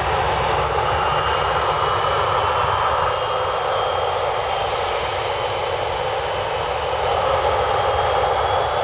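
Boeing 737's twin CFM56 jet engines running on the runway as the airliner begins its takeoff roll: a steady jet rush with a thin whine that climbs in pitch near the end as thrust builds.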